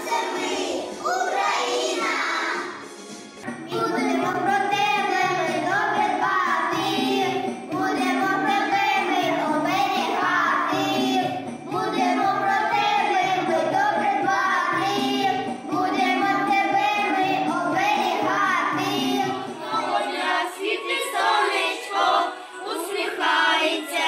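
A group of young children singing a Ukrainian song together over a karaoke backing track. The backing track's bass drops out a few seconds before the end.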